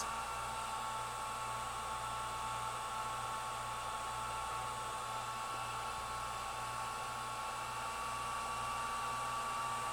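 Hot air rework station blowing steadily through its nozzle onto a phone circuit board, a constant airflow hiss with a faint steady whine. It is heating the solder under a mini USB charging port to free the port for removal.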